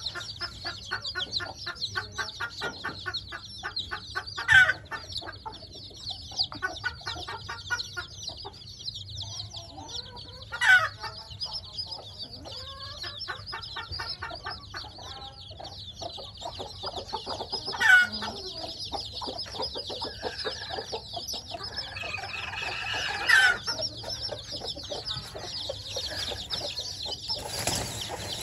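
A brood of week-old chicks peeping continuously in a high, busy chorus. Rapid clucking runs under it for the first several seconds, and four loud, sharp calls stand out a few seconds apart.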